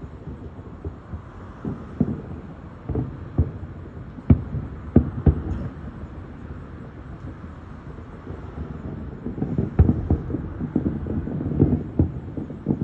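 Fireworks bursting at a distance as dull booms. A few scattered ones come in the first half, then a quicker string of booms and pops over the last few seconds.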